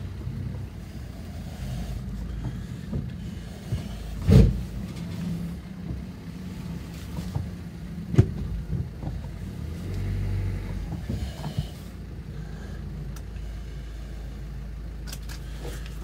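Car engine running steadily at low speed, heard from inside the cabin as a low hum, with a loud knock about four seconds in and a sharper click about eight seconds in.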